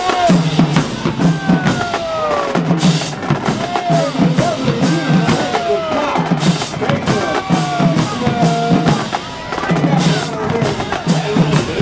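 Drums beating a rhythmic pattern, with repeated deep pitched hits and many sharp cracks, over a crowd's shouting voices.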